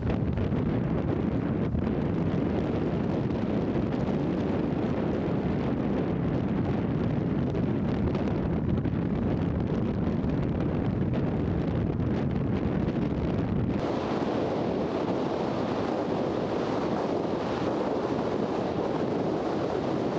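Wind buffeting the microphone: a steady, dense rumbling noise. About fourteen seconds in the sound shifts, with more hiss added to the rumble.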